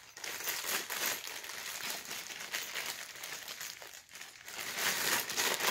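Clear plastic parts bag crinkling and rustling as it is handled and opened. It goes briefly quieter about four seconds in, then grows louder again.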